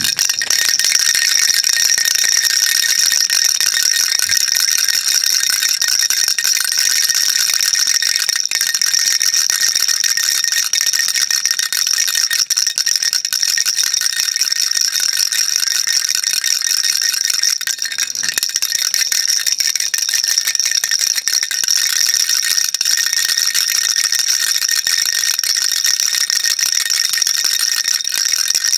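Baby rattle shaken without a break, giving a dense, steady, high, hissy rattling.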